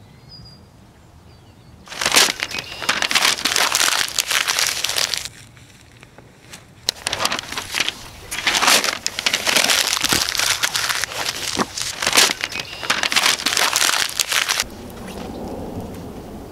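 Close, loud crinkling and rustling in two long stretches: one of about three seconds, then a gap, then another of about seven seconds. It gives way to a softer, lower sound near the end.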